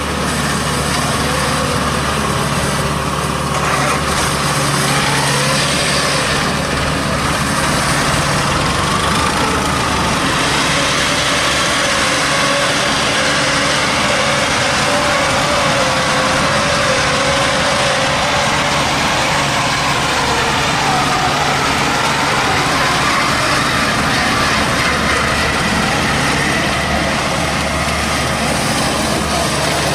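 The engine of a straw-gathering machine converted from an old rice harvester, running steadily at work, with a whine that wavers up and down in pitch.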